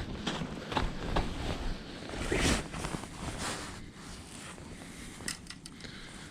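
Rustling and scuffing as a freshly caught smallmouth bass is landed and handled, with a louder swish about two and a half seconds in, then a quieter steady hiss.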